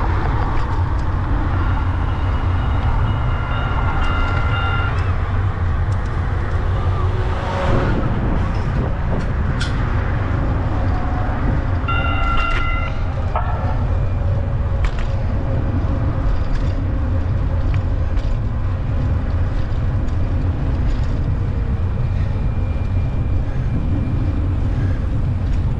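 Wind rumble on the microphone of a moving bicycle, with passing traffic. A horn sounds twice: a held tone of about three seconds near the start, and a shorter one about twelve seconds in.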